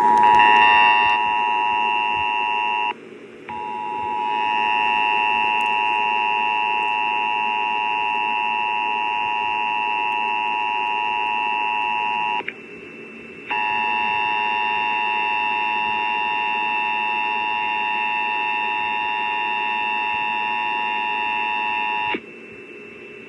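Emergency Alert System two-tone attention signal, the 853 Hz and 960 Hz tones sounding together, received over AM radio with a steady hiss beneath it. It is preceded at the very start by the tail of the SAME header's rapid digital data chirps, cuts out briefly twice (about 3 seconds in and about 12 seconds in) and stops about 22 seconds in, leaving only the hiss.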